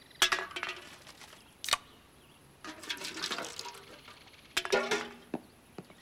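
Metal tin cans and a metal watering can being handled: a series of separate light metallic clinks and knocks with a short ring after each.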